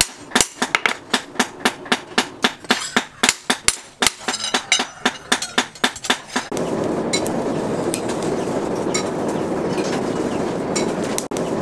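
Hand hammer striking a steel knife blade on a steel post anvil, sharp metallic blows several times a second. About six and a half seconds in the hammering stops and a steady rushing noise takes over, with a few faint clinks.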